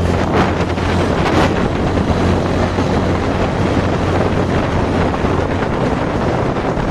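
Heavy wind noise buffeting the microphone of a vehicle moving at speed, over a steady low engine drone.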